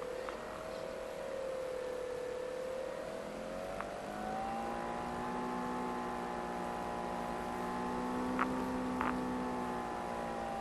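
Electric motor and propeller of an FPV Raptor model plane whining, the pitch rising about halfway in as the throttle opens, holding, then easing down near the end. A few short clicks sound over it, twice close together near the end.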